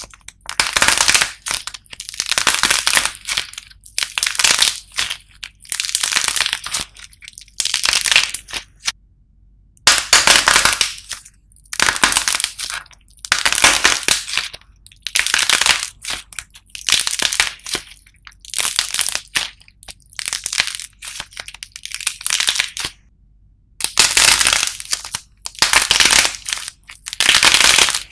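Dried clay coating crunching and crackling as hands squeeze and break it off soft foam squishy toys, in repeated bursts every second or so with short pauses between.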